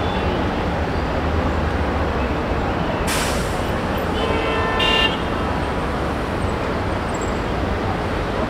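Steady rumble of heavy city road traffic. About three seconds in there is a brief hiss, and then a vehicle horn honks for just under a second.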